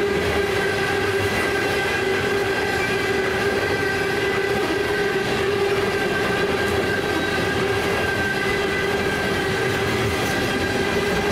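A loaded coal train's hopper cars rolling past at a grade crossing: a continuous rumble and rattle of steel wheels on rail, with steady ringing tones held over it.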